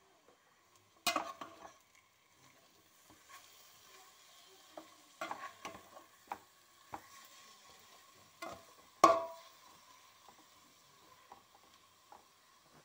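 A metal spoon stirring freshly added chopped tomatoes into fried onion masala in a pan: scattered knocks and scrapes of the spoon against the pan, the loudest about a second in and about nine seconds in, over a faint sizzle.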